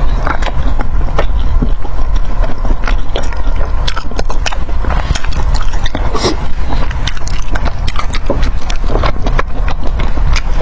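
Close-miked chewing and crunching of food: a dense, irregular run of sharp crackles and clicks over a steady low rumble.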